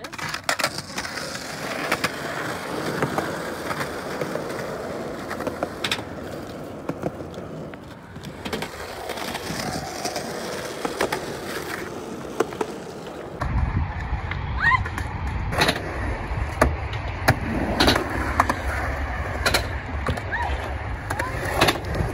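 Skateboard wheels rolling over concrete, with the deck and tail clacking against the ground in sharp knocks. About two-thirds of the way through, the sound changes to a deeper rumble with more frequent clacks.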